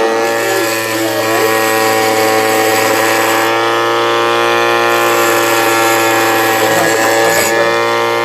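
A 775 DC motor driving a homemade drilling machine, running at a steady speed with a steady whine.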